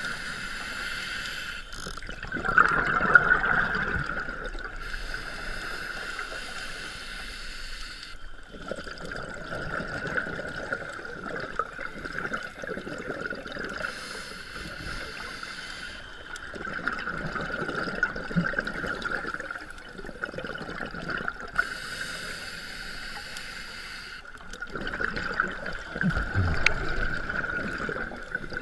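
Scuba regulator breathing close to the microphone: a hiss on each inhale alternating with a burst of bubbling on each exhale, four slow breaths. A faint steady high tone runs underneath.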